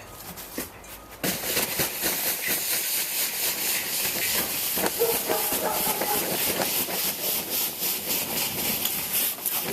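Snow being cleared off a gazebo roof: a steady, rough hiss that starts suddenly about a second in and runs on for about eight seconds.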